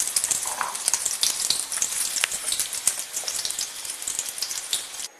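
Batter-coated stuffed green chilli (mirchi bajji) deep-frying in hot oil in a steel kadai: a dense sizzle full of fine crackles, easing a little before it stops abruptly near the end.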